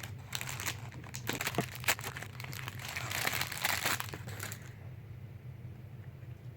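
Wrapping crinkling and rustling as a pop-it fidget toy is unwrapped by hand; the crinkling stops a little before the end.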